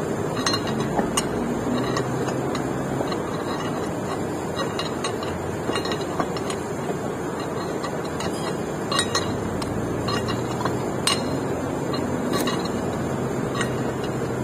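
Scattered light metallic clinks of hand tools against metal parts during a power take-off clutch repair, over a steady background rumble.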